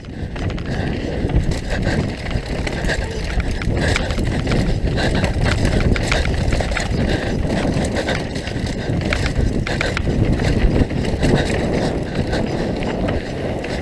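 Mountain bike descending a dirt trail at speed: wind on the microphone and tyre noise on the dirt make a continuous roar, with frequent small knocks and rattles from the bike over bumps.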